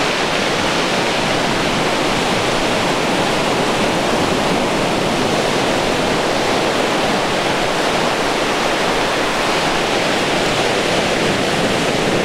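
Rough sea surf breaking and washing up a beach: a loud, steady rushing noise without separate wave crashes standing out.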